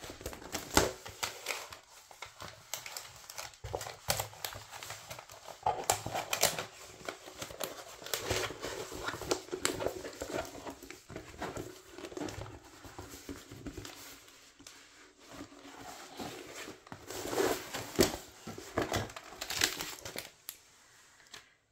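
Packaging of a diamond-painting canvas crinkling and rustling as it is opened and the canvas is unwrapped. Irregular crackles run throughout, loudest a few seconds before the end.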